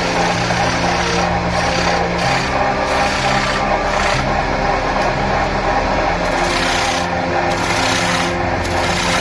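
Electric wood lathe running while a hand-held turning tool cuts into the face of a large spinning wooden disc: a steady scraping rasp over the motor's hum. The cutting noise eases off and comes back several times.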